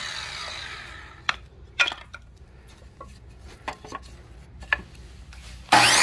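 Ryobi miter saw's blade winding down and fading away, then a few light knocks of a wooden board being set against the saw's fence. Near the end the motor is switched on suddenly and its whine starts to rise as the freshly fitted blade spins up.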